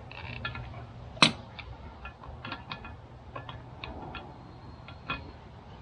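Small metal fittings clicking and clinking as they are handled, irregular light taps with one sharper click about a second in.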